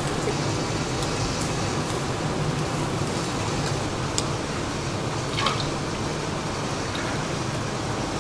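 Thick dark eel sauce poured from one glazed ceramic pot into another, with liquid dripping and splashing, over a steady low hum and hiss.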